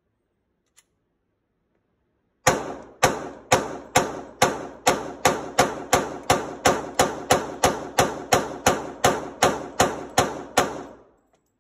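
Glock 27 subcompact pistol in .40 S&W firing a rapid string of about twenty-two shots without a stoppage, starting about two and a half seconds in and speeding up from about two shots a second to about three. Each shot is loud and sharp with a short echo off the range walls.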